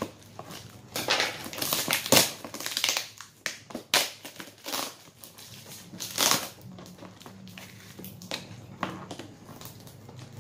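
Bubble wrap and plastic packaging being pulled off and handled, crinkling and crackling in irregular bursts.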